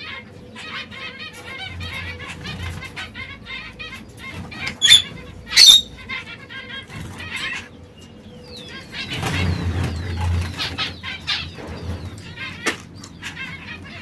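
Caged canaries chirping and twittering in many short, quick calls, with two sharp, loud calls about five seconds in. A rustling flurry about nine seconds in lasts a couple of seconds.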